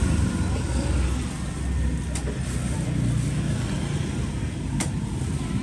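Steady low rumble of road traffic, with a sharp click about two seconds in and another near the end.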